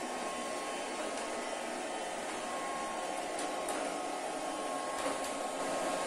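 iLife V3s robot vacuum running across a tile floor: its suction fan gives a loud, steady whirring rush with a thin constant whine through it, and a few faint ticks come now and then.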